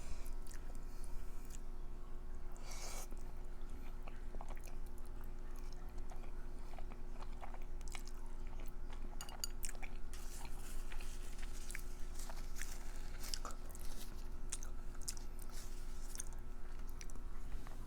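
Close-miked chewing and wet mouth sounds of someone eating, with many small irregular clicks and crackles.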